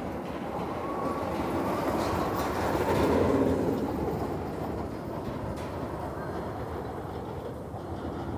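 Arrow Dynamics steel hypercoaster train rolling along its track: a rumbling roar of wheels on the rails that swells to its loudest about three seconds in, then fades as the train runs off toward the far hill. The train is nearly empty and running a little slower than usual in the cooler weather.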